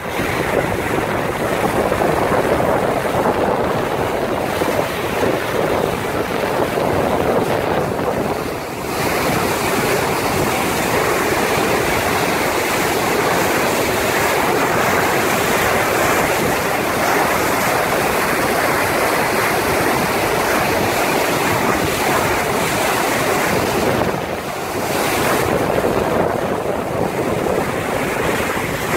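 Steady rushing of wind on the microphone mixed with waves and water, as heard aboard a sailing yacht. The noise drops off briefly twice, about 9 seconds in and again about 24 seconds in.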